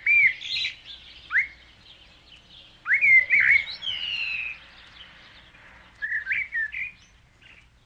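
A songbird singing: groups of quick, upslurred whistled chirps near the start, about three seconds in and about six seconds in.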